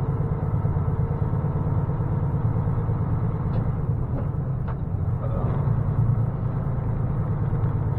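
Semi-truck's diesel engine running as the tractor-trailer rolls slowly, heard from inside the cab: a steady low rumble.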